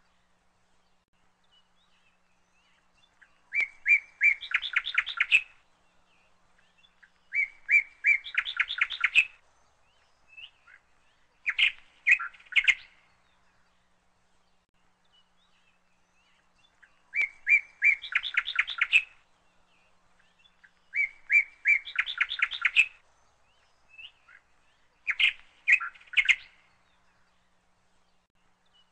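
A songbird singing a repeated phrase about every four seconds, six times: a few separate notes that run into a fast string of notes.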